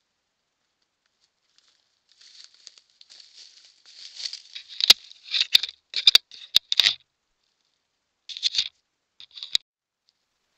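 Close rustling and scraping, as gear is handled right by the microphone, in short bursts with several sharp clicks in the middle and one more near the end.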